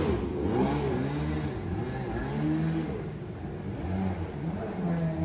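Kawasaki 650 two-stroke engine of a small aluminium jet boat, revving up and down repeatedly as the boat runs off across the river, fading as it goes.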